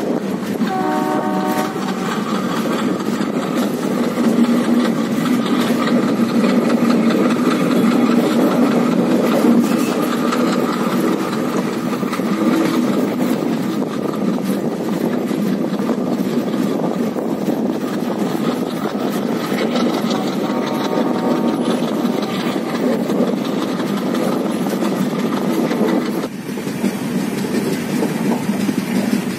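Passenger train running along the line, heard from an open coach door: a steady rumble of wheels on rails and rushing air.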